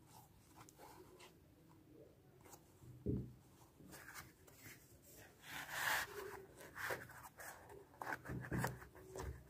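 Hands handling a New Balance Fresh Foam Arishi v3 running shoe: faint rubbing and rustling, a soft thump about three seconds in, a louder brief rustle around the middle, and a run of small taps and knocks near the end.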